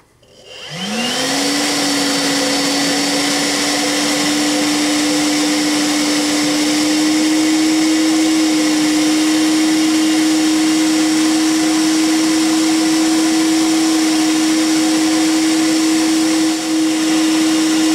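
Milwaukee M12 Fuel compact vacuum switched on with a click, its blower motor spinning up over about a second to a steady whine over a rush of air, then running on low power on a 3 Ah battery without cutting out into safe mode.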